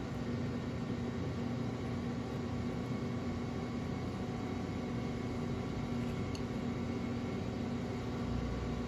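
Steady mechanical hum with a low drone and an even hiss, like a small motor running.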